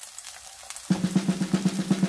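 Faint sizzling of a chive pancake frying in the pan, then about a second in background music comes in with a rapid drum roll that gets louder.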